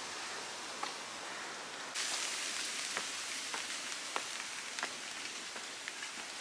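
Light rain hissing steadily, louder and brighter from about two seconds in, with scattered sharp ticks every half second to a second.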